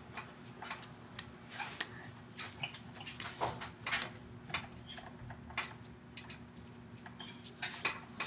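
Linotype typesetting machine at work: irregular sharp metallic clicks and clinks, several a second, over a steady hum.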